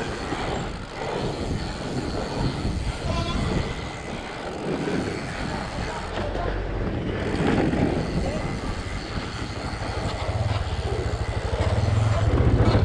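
Fat bike riding over a packed snow trail: steady tyre and frame noise with wind on the microphone. About ten seconds in, an ATV engine comes in as a low, rapidly pulsing drone that grows louder toward the end.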